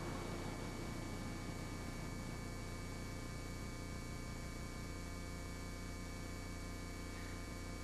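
Steady low electrical hum with hiss, typical of an old off-air VHS recording.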